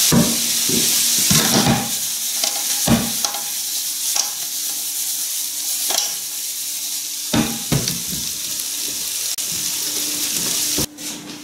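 Squid pieces sizzling in a nonstick frying pan as the deglazing wine cooks off, with a few knocks and scrapes as the squid is stirred in the pan. The sizzle cuts off near the end.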